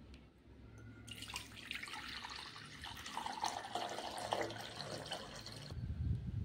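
Water poured in a stream into an empty glass bowl, splashing and filling. It starts about a second in and cuts off abruptly near the end, followed by a low rumble.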